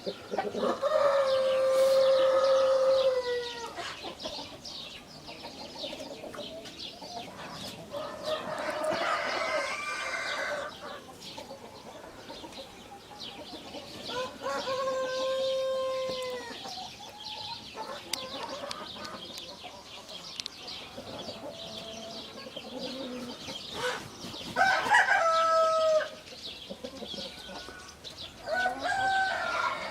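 Roosters crowing in turn, five long crows at uneven intervals, with chickens clucking between them.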